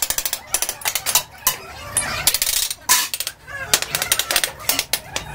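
Hand tools at work on a sand-casting mould: an irregular run of sharp knocks and rattling clicks, several a second.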